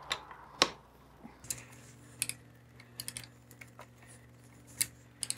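Scattered light clicks and taps of hand tools and metal hardware being handled while a handlebar speaker mount is bolted on, coming at irregular intervals.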